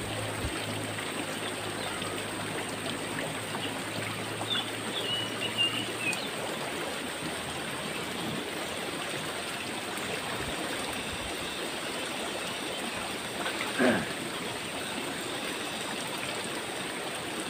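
River water flowing with a steady rushing sound, with a faint low hum under it for the first six seconds or so and a brief louder sound about fourteen seconds in.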